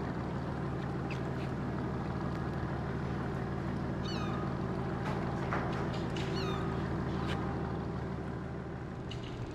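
Lobster boat's engine running steadily, with gulls calling several times over it in short falling cries.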